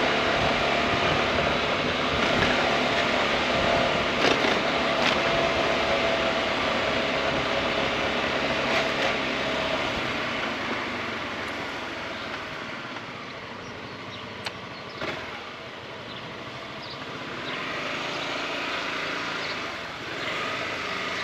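Honda ADV 350 scooter's single-cylinder engine running under way, with wind and road noise. The sound eases off about halfway through and picks up again near the end.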